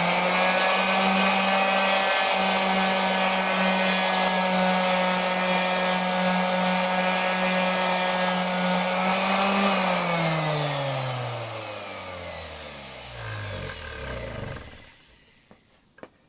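SKIL 5-inch random orbital sander with 120-grit paper running at a steady pitch while sanding the clear coat off an old countertop offcut. About ten seconds in it is switched off, and the motor winds down with a falling whine over several seconds until it stops.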